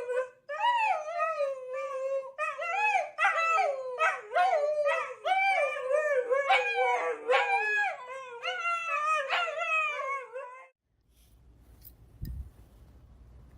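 A dog howling and whining in a long run of short, pitched calls that rise and fall, like a dog talking back. The calls stop about eleven seconds in.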